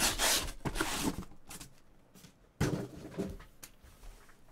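Corrugated cardboard case scraping and rustling as it is slid up off a stack of shrink-wrapped hobby boxes, loudest in the first second, with a bump about two and a half seconds in.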